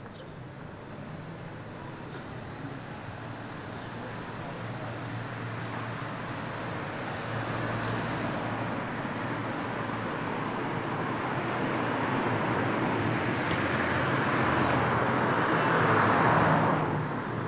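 A motor vehicle, most likely a car, approaching slowly with a low engine hum and tyre noise that builds steadily. It passes close by about sixteen seconds in, then quickly fades away.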